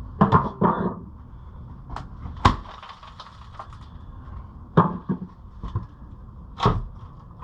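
Rotten wood being pried and pulled off a house wall: about five irregular knocks and bangs, the loudest about two and a half seconds in and near the end.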